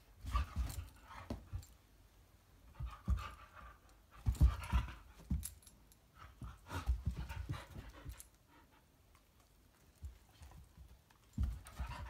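A Belgian Shepherd dog breathing and sniffing at close range in short, irregular bouts, mixed with soft low thumps and rustles.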